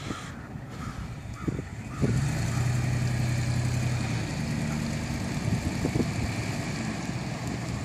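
Ford Expedition's V8 engine running as the SUV is driven slowly at low speed; the engine note gets louder about two seconds in and then holds steady.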